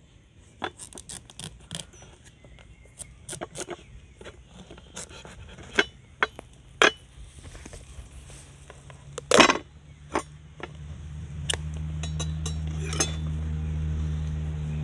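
Kitchen utensils clicking and knocking against a wooden board and metal, then a single loud crack about nine seconds in as a pumpkin is cut and split in half. A steady low hum comes in over the last few seconds.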